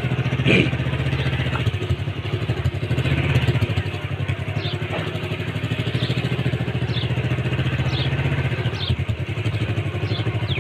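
A small engine running steadily, a low rumble with a fast even pulse that holds level throughout. A few short high chirps come in the second half.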